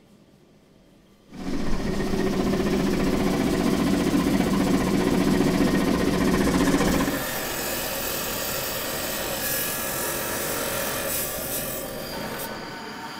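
Large circular stone saw cutting a block of malachite, starting suddenly about a second in with a loud, dense machine noise. About seven seconds in it gives way to a quieter, steadier machine noise.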